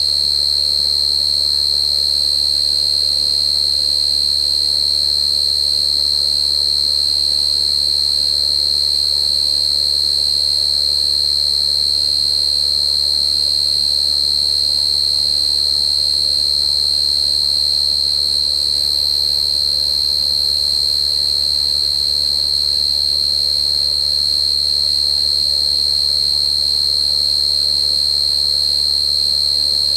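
Cricket calling in one continuous high-pitched trill, held steady without a break.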